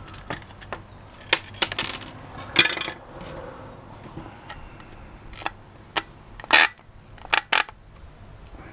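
Scattered clicks and clacks of a corded drill's plastic clamshell housing and its metal internals knocking as the drill is pulled apart by hand, about ten separate knocks.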